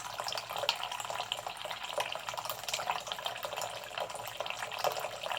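Water running from a faucet into a sink, a steady splashing stream.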